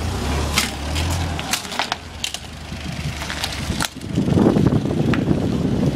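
Scattered sharp clanks and knocks over a low engine hum, then from about four seconds in the Doosan Daewoo propane forklift's engine runs louder.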